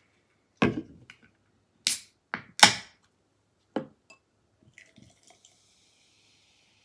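Sharp clicks and taps of an aluminium beer can being handled and opened beside a glass, the loudest about two and a half seconds in. From about five seconds in, beer pours into a stemmed glass with a faint, steady fizzing hiss.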